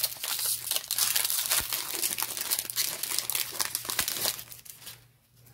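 Foil wrapper of a Pokémon trading card booster pack crinkling as it is handled and opened by hand; the crinkling stops about four and a half seconds in.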